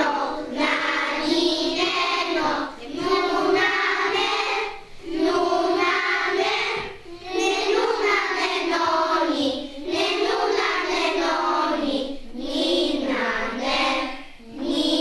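A group of children singing together, in phrases of about two seconds with short breaks between them.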